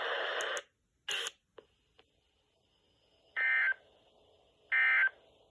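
NOAA Weather Radio end-of-message (EOM) signal: short, identical buzzy bursts of digital SAME data tones, two of them about 1.4 s apart, marking the end of the weekly test broadcast. A hiss of static cuts off in the first second, just before them.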